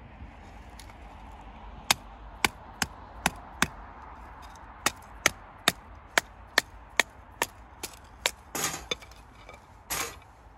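Batoning firewood: a knife blade is driven down through a split of wood by a baton, giving about fourteen sharp knocks, roughly two to three a second, in two runs with a short pause between. Two short, rougher noisy bursts follow near the end.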